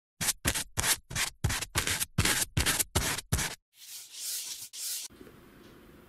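A quick series of about eleven short scratching strokes, roughly three a second, then two longer scrapes about four seconds in.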